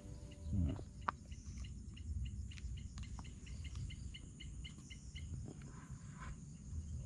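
Faint forest insect chorus: a steady high buzzing hum, with a run of quick pulsed calls at about four a second through the middle. A low rumble sits underneath.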